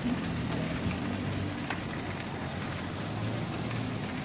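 Isaan pork sausages sizzling on a charcoal grill: a steady hiss with faint crackles, over a low background hum.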